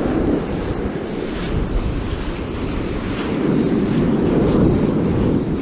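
Wind buffeting the microphone over the rush of ocean surf, a steady low rumbling noise that swells a little in the second half.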